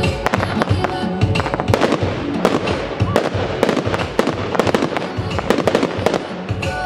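Fireworks display firing in rapid volleys: many shots and bangs in quick succession over a musical soundtrack.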